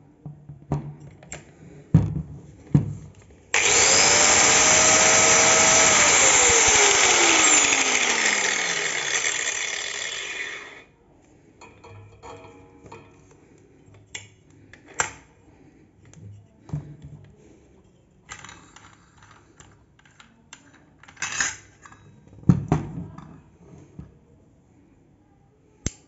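Stanley angle grinder with a 24-tooth saw blade fitted switches on with a rising whine and runs freely at full speed for about four seconds. It is then switched off and winds down with a falling whine. Clicks and knocks of the quick-release lock nut being handled come before it and follow it as the nut is loosened by hand and taken off.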